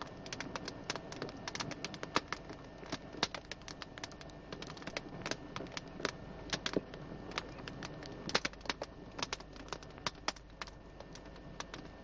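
Wood campfire crackling, with many irregular sharp pops and snaps.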